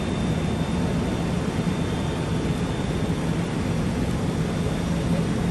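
A steady engine drone with a low hum under a constant rushing noise, unchanging throughout.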